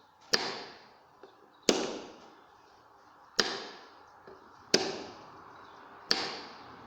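Magnetic contactors on a three-phase direct-on-line starter panel clacking in and out as the start and stop push buttons are worked. There are five sharp clacks about a second and a half apart, each fading away over about a second.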